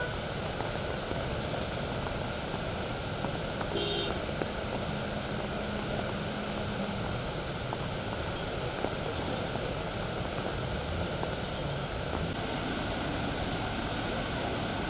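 Floodwater rushing in a swollen river: a steady, even noise. A brief tone sounds about four seconds in.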